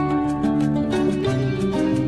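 Instrumental background music: sustained pitched notes and chords that change about every half second.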